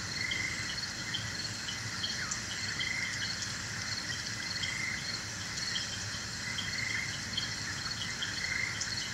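Steady chorus of chirping crickets: short high chirps repeating two or three times a second over a softer trill that swells and fades about once a second.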